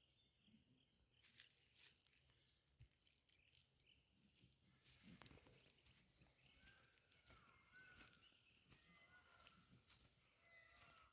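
Near silence outdoors, with faint, short bird chirps repeating throughout and a few faint clicks.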